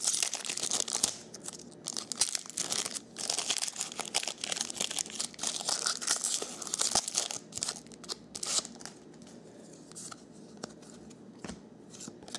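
A foil wrapper of a 2011 Bowman Platinum baseball card pack crinkling in irregular bursts as it is torn open and crumpled. It goes quieter for the last few seconds, with a few faint clicks as the cards are handled.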